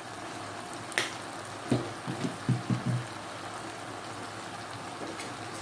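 Pot of vegetables and shrimp simmering on the stove, a steady bubbling hiss, with a sharp click about a second in and a few short low sounds a little later.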